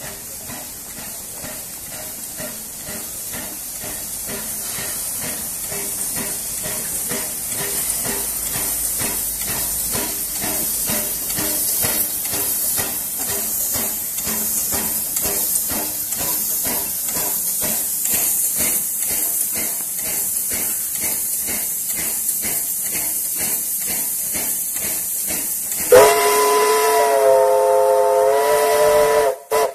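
USATC S160 steam locomotive moving slowly: a steady hiss of steam escaping at the cylinders, with a regular beat, growing louder as the engine draws near. Near the end its steam whistle sounds for about three seconds, several tones together, dipping briefly in pitch before it cuts off.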